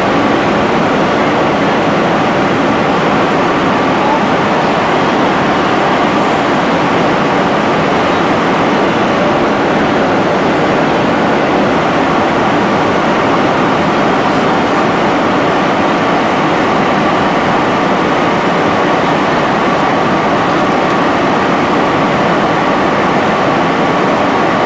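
Steady, loud airliner cabin noise in flight: jet engine and airflow, with a faint steady hum riding on top.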